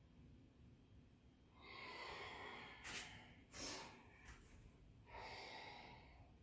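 Faint breathing of a woman exerting herself: two long breaths through the nose, with a couple of short sharp puffs between them.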